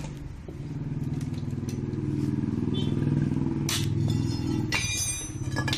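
A motor vehicle engine running, growing louder from about half a second in and easing off near the end, with a sharp knock partway through and metallic clinks at the close.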